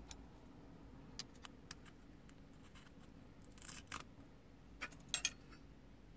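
Faint clicks and a short scrape of fingers handling the metal parts of a dismantled Alpine 5313 car stereo's tape mechanism, over a low steady hum. The scrape comes near the middle, and two sharp clicks near the end are the loudest.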